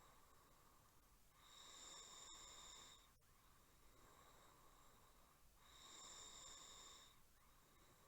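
Faint snoring: two long snores about four seconds apart, each lasting about a second and a half.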